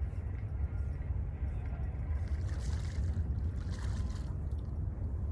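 Steady low wind rumble buffeting the microphone, with two short bursts of hissing noise near the middle.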